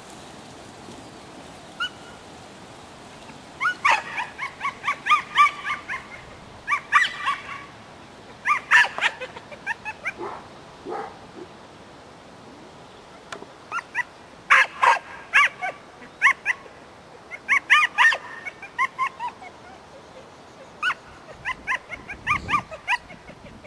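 A dog barking in high, quick yips. The yips come in about six runs of several short barks each, with pauses between them.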